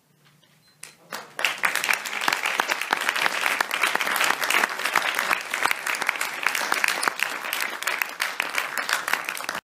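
Audience applauding: a few scattered first claps about a second in, then dense, steady clapping that cuts off abruptly near the end.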